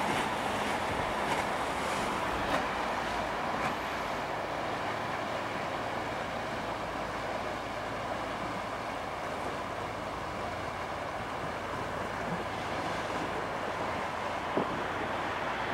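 Steady rush of river water and wind, with the low hum of a small passenger ferry's engine underneath as it passes. A light knock near the end.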